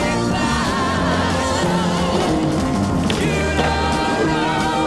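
A song with a singing voice over sustained bass notes.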